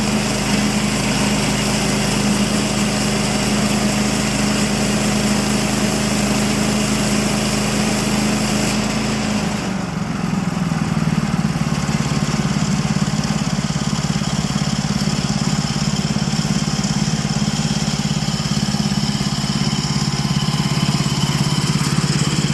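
Small gasoline engine of a Woodland Mills portable sawmill running steadily. About ten seconds in its pitch drops slightly and the high hiss falls away, then it runs on at the lower note.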